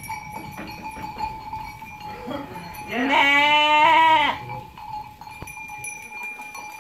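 Sheep bleating: one long, loud, wavering bleat about three seconds in, over quieter knocks and shuffling from the crowded flock.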